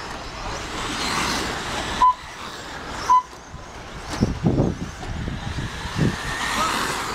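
Electric 1/10-scale stadium trucks (Associated T4.1) running on a dirt track. Three short high beeps from the lap-counting system sound as cars cross the timing line.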